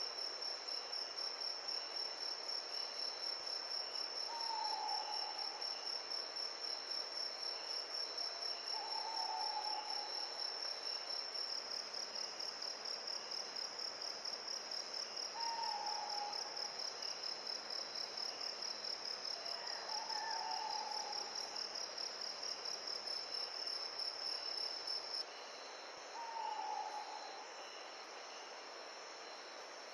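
Insects, crickets or similar, trilling steadily in a fast high pulse that stops about 25 seconds in, over a soft, even hiss of wind or surf. A short falling call, likely from a bird, repeats every five seconds or so.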